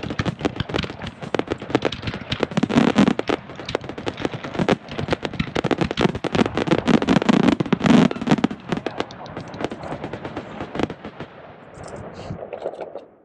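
Aerial fireworks display with shell bursts and ground fountains: a dense, rapid run of bangs and crackling, heaviest in the middle, thinning to scattered crackle near the end before it cuts off suddenly.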